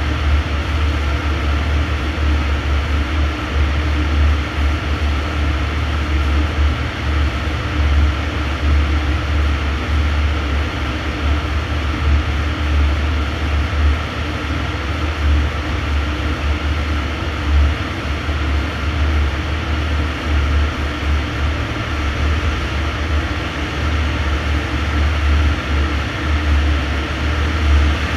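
Steady low drone of a tuned BMW 320d's four-cylinder turbodiesel idling on a chassis dyno, mixed with the airflow of a large dyno cooling fan. There is no revving or change in pitch.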